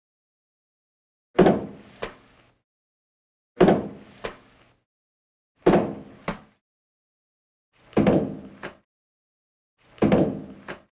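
A repeating percussive pattern: a heavy, resonant thud followed about half a second later by a sharp click, about every two seconds, five times, with silence in between.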